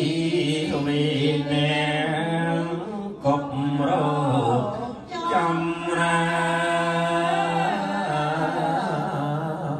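Group of Cambodian Buddhist lay worshippers chanting a Buddhist text together from chant books, in a slow sung unison with long held notes, pausing briefly twice.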